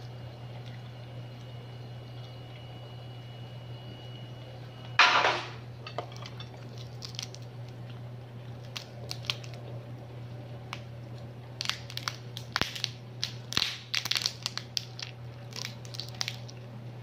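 Cooked mud crab being broken apart by hand: its shell and body crack and crunch in a run of sharp snaps, densest in the second half, with one louder short burst about five seconds in. A steady low hum runs underneath.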